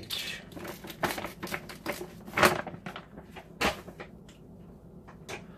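Crinkling and rustling of a bag of almond flour being handled and set aside, with clicks and knocks of items on a wooden tabletop. The loudest crackle comes about two and a half seconds in, and a sharp knock about a second later.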